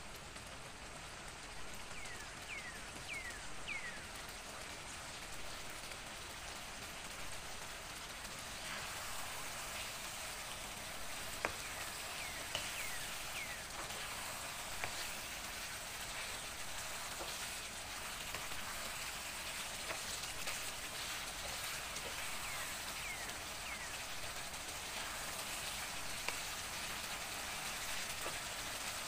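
Chicken pieces sizzling and bubbling in a thin sauce that is cooking down in a frying pan, a steady hiss that grows slightly louder. A few light knocks of a wooden spatula on the pan as the chicken is stirred.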